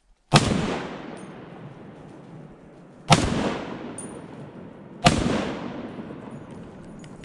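Three rifle shots from a Browning LongTrac in .300 Win Mag, fired at wild boar: the first shortly after the start, then about 2.8 s and 2 s apart. Each shot is loud and sudden, with a long echo fading through the forest.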